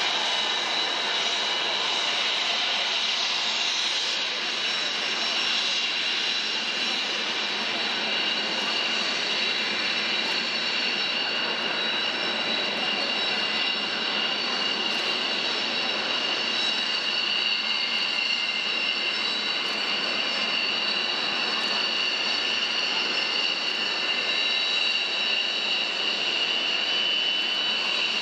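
Military jet engines running at idle as jets taxi on the apron: a steady, even engine noise with two high whining tones held throughout.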